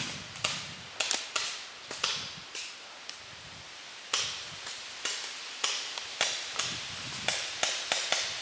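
Paintball markers firing in an exchange of shots: sharp pops at an uneven rate of about two or three a second, each with a short echo.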